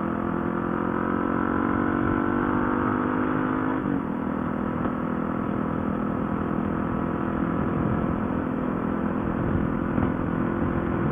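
Motorcycle engine pulling under way, its note climbing slowly for about four seconds, then dropping off sharply, after which the engine runs on under a steady rushing noise.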